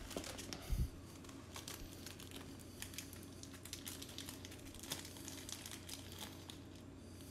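A small clear plastic bag crinkling and crackling in the fingers as it is worked open. There is a single dull bump a little under a second in.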